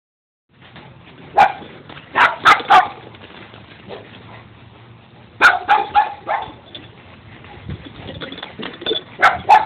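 A dog barking in short groups: one bark, then three quick barks, a run of about four a few seconds later, and two more near the end.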